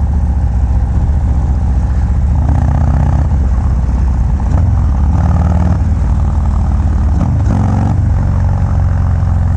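Harley-Davidson FXDR's 117 cubic inch Milwaukee-Eight V-twin running loud through a Bassani Road Rage exhaust while being ridden. The engine note shifts in pitch a few times, about two and a half, four and a half and seven and a half seconds in.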